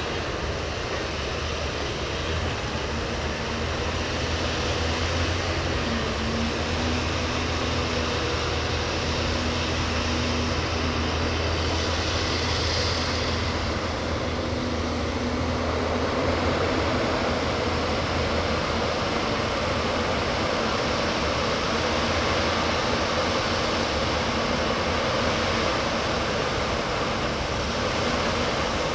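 Backhoe loader's diesel engine running steadily with a low drone and no letup, picking up slightly a few seconds in.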